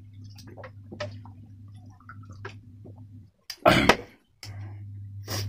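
Close-up gulping and small wet mouth clicks while drinking from a can, over a steady low hum. About three and a half seconds in there is one loud, short thump.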